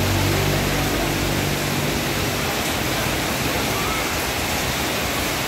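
Heavy tropical rain pouring onto a street, a steady hiss. In the first couple of seconds a low engine hum sits under it, then fades out.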